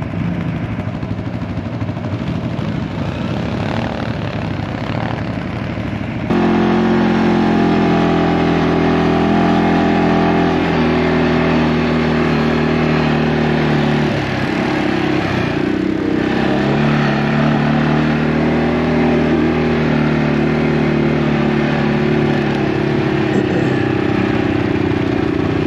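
ATV engines running under way on a snowy trail. From about six seconds in, the CFMoto ATV carrying the microphone is louder and steady, with its pitch dropping briefly midway and climbing again as the rider eases off and speeds back up.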